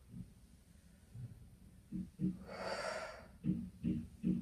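A woman's audible breath out, one short rush of air about two and a half seconds in, taken in time with a seated trunk-rotation exercise. Faint, evenly spaced low pulses follow near the end.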